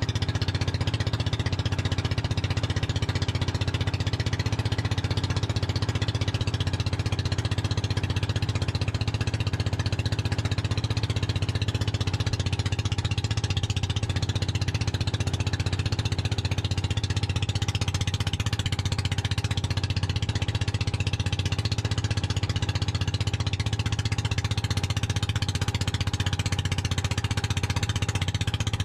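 Small outrigger boat's engine running steadily at cruising speed, a loud low drone with a fast, even chugging beat.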